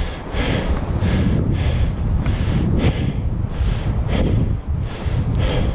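A hiker walking a dirt trail and breathing hard, with breaths and footsteps coming about twice a second over a low rumble of wind on the microphone.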